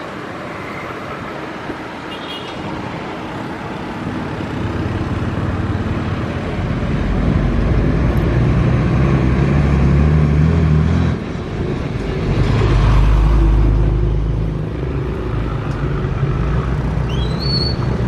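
Heavy diesel engines of a hydraulic excavator and a loaded dump truck working. The low engine rumble swells and revs up under load from about a third of the way in, dips briefly a little past halfway, then swells again before easing off.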